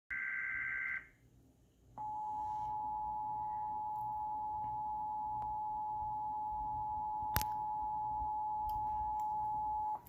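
Emergency Alert System tones played through a TV speaker for a tornado warning. A short burst of the digital data header ends about a second in. After a brief gap comes the steady two-tone attention signal for about eight seconds, with one sharp click partway through.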